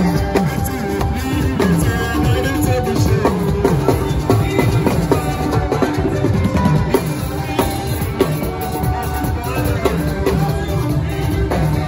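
Live band music: a Yoruba talking drum beaten with a curved stick, its strokes bending up and down in pitch, over other drums and electric guitar.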